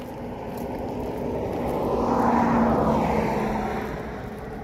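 A motor vehicle passing along the road: its engine and tyre noise swell to a peak about halfway through, then fade as it drives away.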